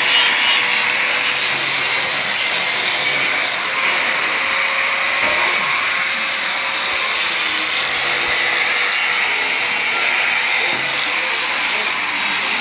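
Angle grinder running continuously, its disc grinding the edge of a round stainless steel plate: a harsh, steady hiss with a constant motor whine beneath it.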